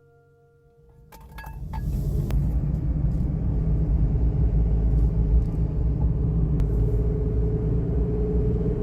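A car on the move: a steady low rumble of engine and road noise that builds up over the first couple of seconds after a few clicks, with a faint steady whine growing near the end.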